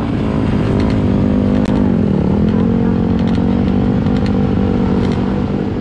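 Dirt bike engines running at a race start line: one close engine idles steadily, dipping briefly in pitch about two seconds in, over the rougher running of the many bikes around it.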